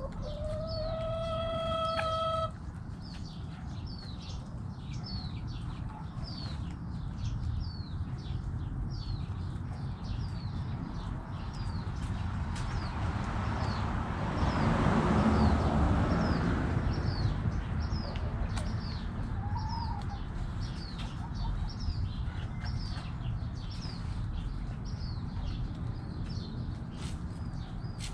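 A rooster finishes a crow with one long held note that cuts off about two and a half seconds in. Behind it a small bird chirps over and over, short falling notes about once a second, and a hen clucks briefly later on. A swell of rushing noise rises and fades around the middle.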